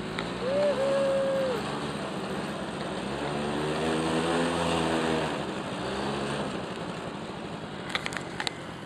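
Quad bike (ATV) engine revving, its pitch rising and then falling over a few seconds in the middle, over steady wind noise. A few sharp knocks come near the end.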